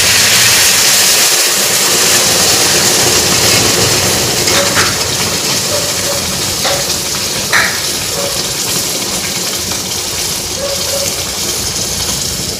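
Hot sugar syrup poured from an aluminium saucepan through a strainer into a wok of ghee-roasted flour: a steady hissing gush that slowly weakens, with a few light knocks of metal and strainer midway. This is the syrup going into the roasted flour while making halwa.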